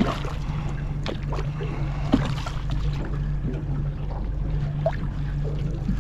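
A boat engine idles with a steady low hum, with a few short splashes and knocks as a small yellowtail kingfish is handled at the water's surface.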